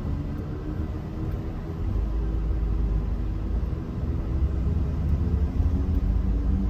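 Steady low rumble of vehicle engines and road noise at an even, held-back pace, getting a little louder about two seconds in.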